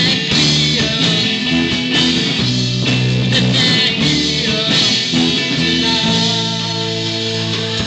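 Rock band playing live: electric guitars and bass chords over drums and cymbals, loud and continuous.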